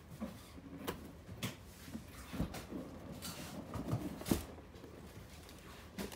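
A cardboard shoe box being handled and its lid lifted off: scattered light knocks and rubbing of card on card, the loudest knock a little past four seconds in.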